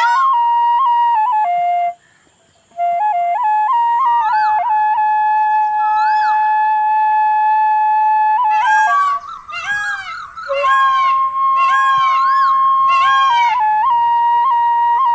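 Bansuri bamboo flute playing a ringtone melody of long held notes, with a brief gap about two seconds in. In the second half comes a run of swooping, bending notes about a second apart.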